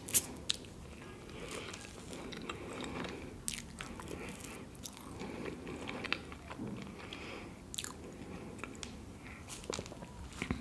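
Close-miked mouth sounds of chewing soft chocolate-and-cream cake: wet chewing and lip smacks, broken by scattered sharp clicks. The loudest click comes right at the start.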